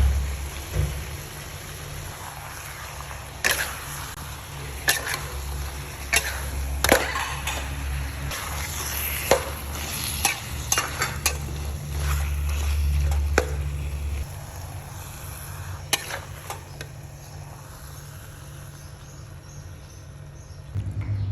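Eggplant, pork and shrimp frying in a pan, a steady sizzle with a utensil scraping and knocking against the pan now and then. A low hum under it stops about two-thirds of the way through.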